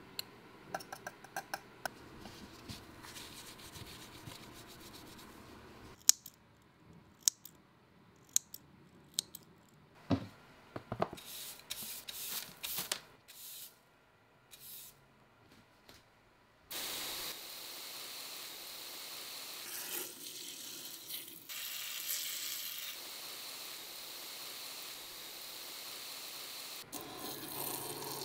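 Terrarium cleanup: crisp clicks and snips as a blade trims plants, the sharpest a few seconds in. About halfway through, a steady hiss starts and runs for about ten seconds, then cuts off shortly before the end.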